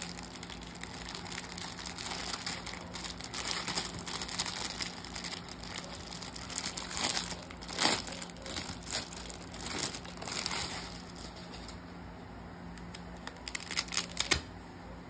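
Clear plastic packaging bag crinkling and rustling as a cash wallet is unwrapped by hand, dying down about eleven seconds in, followed by a few sharp clicks near the end.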